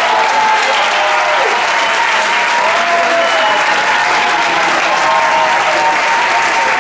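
Large audience applauding steadily, with voices calling out over the clapping.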